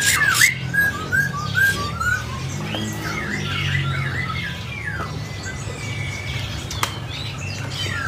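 Many caged songbirds chirping and whistling at once, short rising and falling notes overlapping one another, over a low steady hum. A single sharp click comes about seven seconds in.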